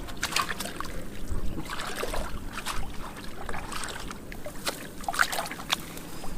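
Shallow muddy water sloshing and splashing irregularly as someone wades and gropes through it by hand.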